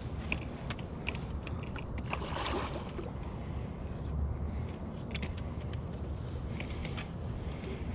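Spinning reel and bent rod being worked against a hooked king salmon: scattered light clicks and taps over a steady low rumble, with a short swish about two and a half seconds in.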